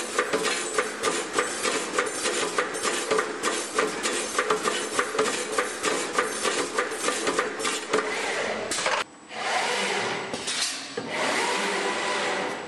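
Semiautomatic CN wire welding machine running, its wire-feeding mechanism clattering with rapid metallic clicks, several a second. From about two-thirds in the clicking gives way to a steadier rushing mechanical noise, broken by a brief drop-out.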